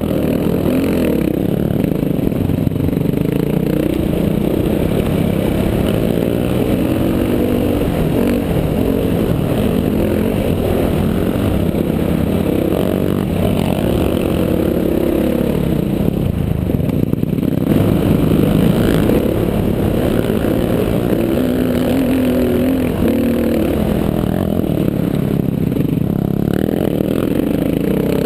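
Honda sport quad's engine running hard under load on a sandy dune climb, its pitch rising and falling as the throttle changes, heard from onboard over a dense rush of wind and ground noise.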